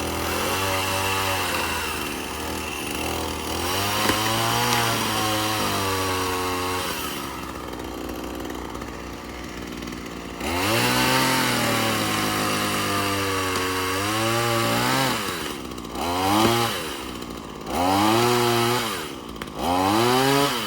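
Two-stroke chainsaw cutting into a tree trunk, revving high with its pitch wavering under load. It drops back to a lower note around seven seconds in, cuts again from about ten seconds, and finishes with three short throttle bursts.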